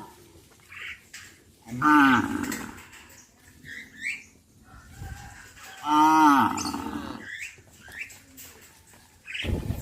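Cows mooing: two long, loud moos about four seconds apart, each rising then falling in pitch, with a third beginning near the end.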